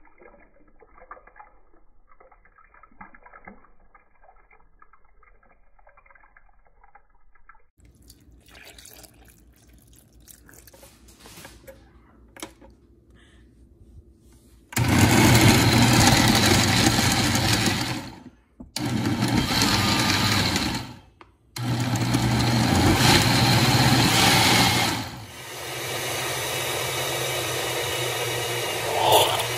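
Oster countertop blender blending frozen berries, banana and milk: three loud bursts of about three seconds each with brief stops, like pulsing, then running continuously at a slightly lower level. Before it, faint handling sounds as the jar is set up.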